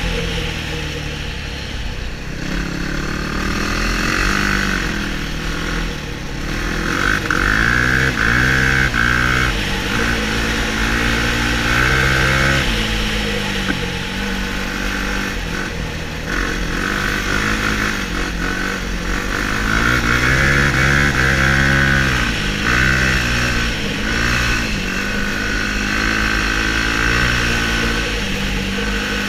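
Sport quad's engine heard from on board, revving up and easing off again and again as it accelerates down a snowy ice track. The pitch rises and falls every few seconds, with short breaks between the rises.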